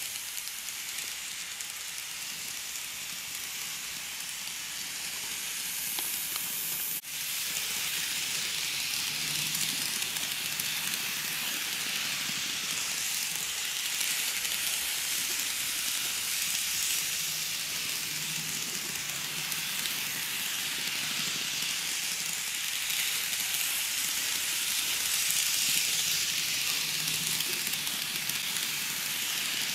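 KATO N-scale model of a JR 211-series electric train running on its track: a steady hiss with a faint low motor hum that comes and goes. The sound drops out for an instant about seven seconds in.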